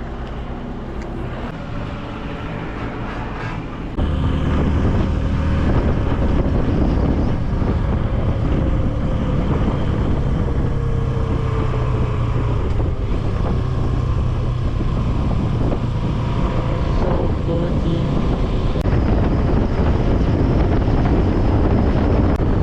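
Motorcycle riding at road speed: engine running under heavy wind noise on the microphone. Quieter for about the first four seconds, then a sudden step up to louder running.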